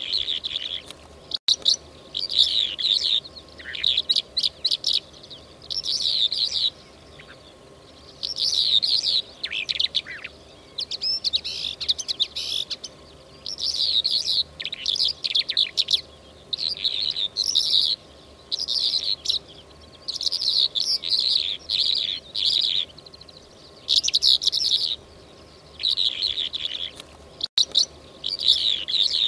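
Lark song: short, quick twittering and trilling phrases, high-pitched, repeated every second or two with brief pauses between them.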